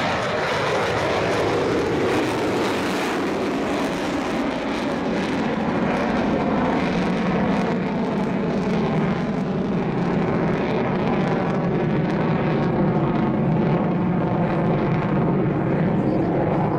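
Jet noise from the F-15J Eagle's twin F100 turbofans in afterburner. The loud roar drops in pitch over the first couple of seconds as the fighter passes, then holds steady as it climbs away.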